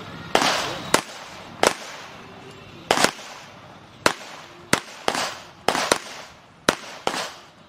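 A .45-calibre pistol fired in a rapid string of about a dozen shots at uneven spacing, some in quick pairs, each crack followed by a short echo.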